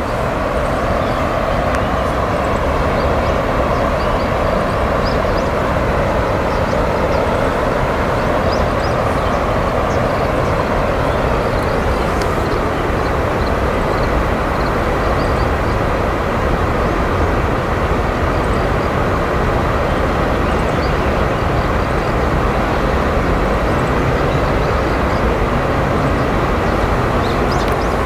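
Steady rush of flowing river water, even and unbroken, with faint short high chirps over it.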